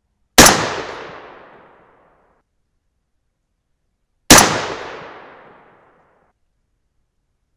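Two shots from an AR-15 in .223 with a 20-inch White Oak Armament Predator barrel, about four seconds apart. Each is a sharp crack followed by an echo that trails off over about a second and a half.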